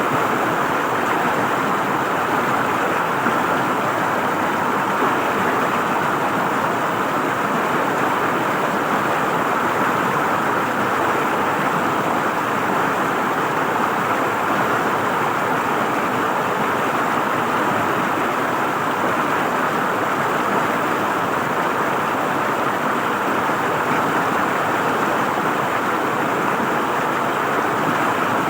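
River water flowing over rocks, a steady rush with no breaks or changes.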